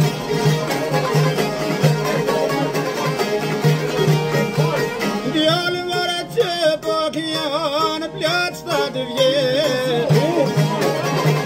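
A long-necked fretted lute strummed in a quick steady rhythm, with a man's voice joining in singing a folk song about halfway through.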